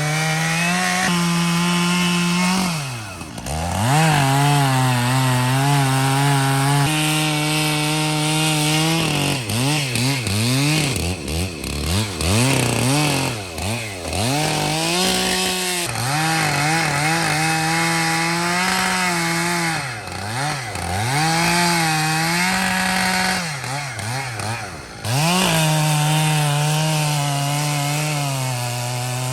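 Large chainsaw cutting through a thick elm trunk section at high revs, its engine pitch sagging sharply and recovering several times as the bar loads up in the wood.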